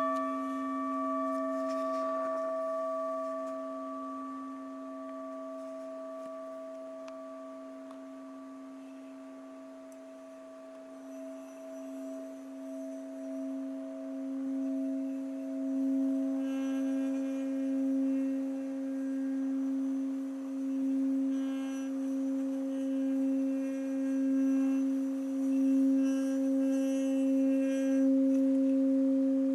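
Tibetan singing bowl struck once, its layered ringing tone slowly fading. From about eleven seconds in it swells back into a loud, wavering, pulsing hum as the bowl is rubbed around its rim.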